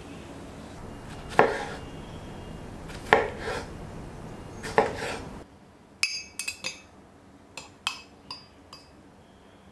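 A kitchen knife cutting through strawberries onto a wooden cutting board, three firm chops about a second and a half apart. Then, after a cut, a run of light ringing clinks against a glass jug.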